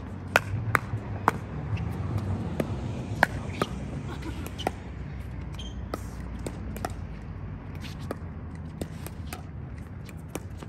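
Pickleball paddles hitting a plastic pickleball in a rally: sharp, hollow pops at irregular intervals, some loud and close, others fainter, over a low steady background.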